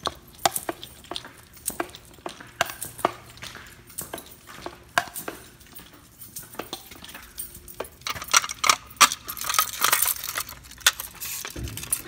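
Footsteps with keys or tools jingling at each step, then a denser spell of metal clinking and rattling for a few seconds near the end.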